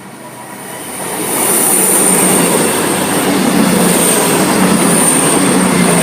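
A train passing close by a level crossing. The rush of wheels on rail builds over the first second or so and stays loud, with a thin, steady high whine running over it.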